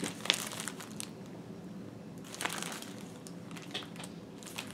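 Clear plastic packaging crinkling and crackling as it is handled, in short irregular crackles.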